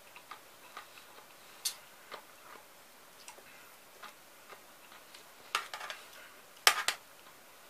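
Metal spoon clinking and scraping against an enamel pot as cucumber salad is scooped up, with soft scattered clicks in between. The loudest clinks come in a quick cluster near the end.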